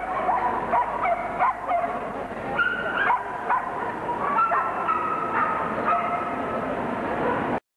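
Several Samoyed dogs yipping and whining, a string of short high cries with a few longer held whines among them; the sound cuts off suddenly near the end.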